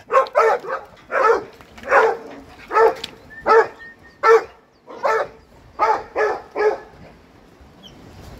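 A dog barking repeatedly, about eleven sharp barks under a second apart, stopping about seven seconds in.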